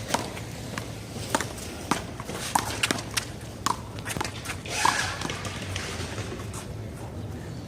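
Rubber handball rally in one-wall handball: a quick, irregular run of sharp slaps as the ball is struck by hand, hits the wall and bounces off the pavement. There is a brief noisy burst about five seconds in.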